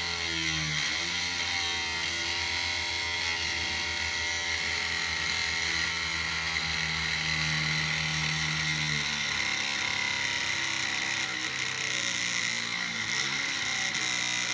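Small DC hobby motor of a miniature model boat running steadily with a continuous whirring whine.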